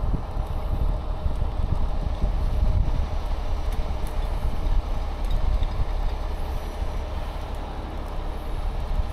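Heavy rotator tow truck's diesel engine running steadily, a low rumble with no sharp events.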